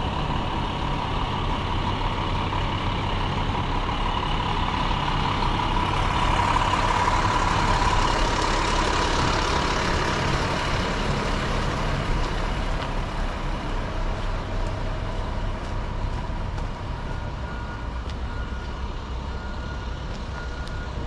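City street traffic: vehicle engines rumbling steadily, with traffic noise swelling and passing about six to ten seconds in, over a steady high-pitched tone.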